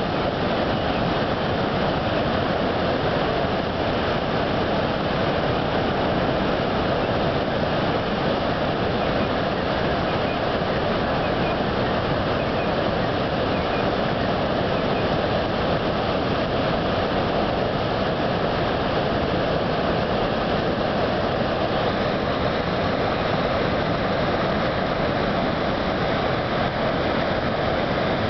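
A large waterfall's falling water: a steady, even rushing noise that does not change.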